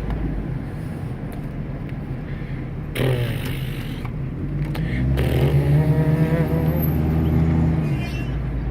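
Car driving with a steady low road-and-engine rumble. About three seconds in there is a sudden louder swell, and from about five to eight seconds the engine note climbs and grows louder as the car accelerates, then drops back.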